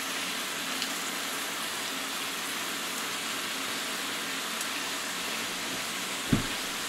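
White wine and lemon-juice pan sauce simmering in a stainless steel skillet: a steady, even sizzling hiss. A short thump near the end.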